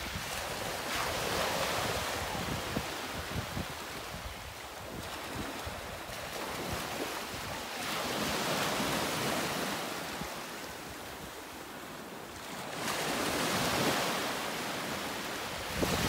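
Sea waves washing in, the surf swelling and fading every few seconds, with wind rumbling on the microphone.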